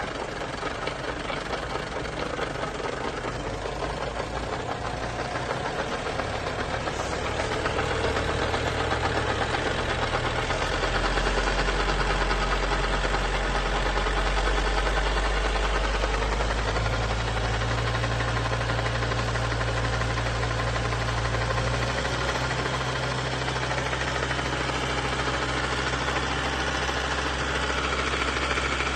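Vehicle engine running steadily, with a low hum that shifts in pitch a few times.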